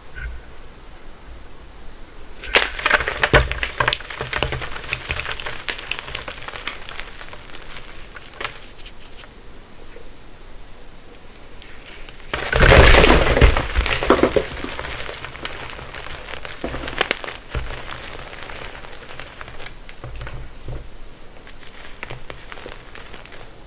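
Gym chalk being crushed: crumbly crunching and crackling, at its loudest in a heavy burst of crunching about halfway through, then lighter crackles.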